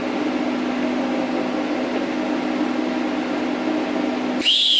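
TIG welding arc buzzing steadily with a low hum. It cuts off abruptly near the end, followed by a brief loud hiss with a short high tone that rises and falls.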